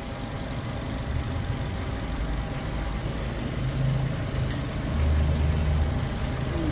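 Toyota 1NR-FE 1.3-litre four-cylinder engine idling steadily as it warms up after a timing chain replacement. A faint click sounds once, about four and a half seconds in.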